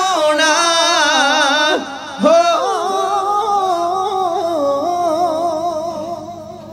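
Men's voices singing Punjabi kavishri: a short phrase, then one long wavering held note that fades out near the end.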